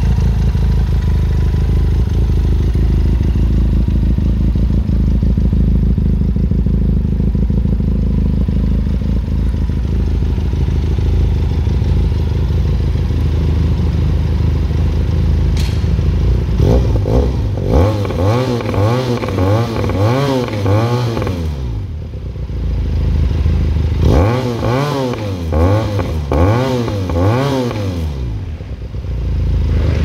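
Benelli TRK 502 X parallel-twin engine through an SC Project carbon slip-on with a cat-delete elbow, idling steadily, then revved in quick throttle blips from about halfway: two runs of several rapid rises and falls in pitch with a short pause between.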